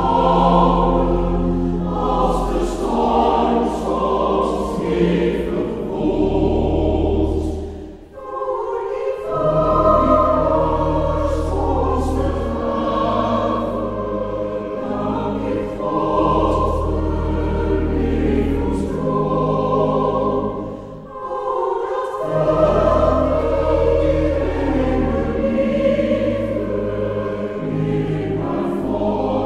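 Choir singing a Dutch hymn in slow, held chords, with a strong bass line. The singing breaks briefly between phrases about eight seconds in and again about two-thirds of the way through.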